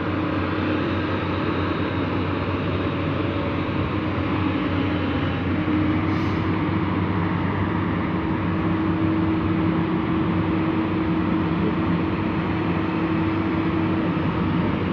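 Heavy diesel machinery running steadily, with an even engine drone and a steady whine that steps up slightly in pitch about five seconds in.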